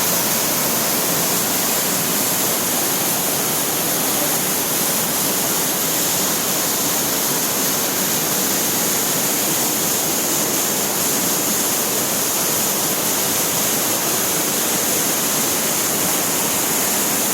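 Waterfall pouring steadily: a loud, constant rush of falling water with no breaks.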